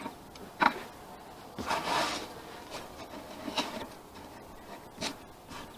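Plastic bags of sugar syrup and a cloth hive cover rustling, with a few light knocks on the wooden hive, as they are handled on top of the frames. There is a longer rustle about two seconds in and shorter ones after it.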